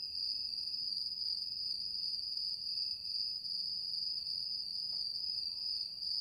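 Crickets chirring in a night-time ambience: one continuous high trill.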